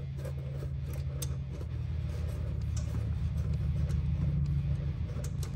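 A low steady mechanical hum, with a few light clicks and scrapes of hand work on the engine's underside.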